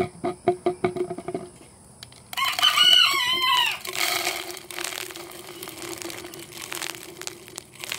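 A rooster crows once, about two seconds in, a single long arching call that is the loudest sound. Before it, a quick rattle of clicks: feed pellets being poured into a chicken feeder.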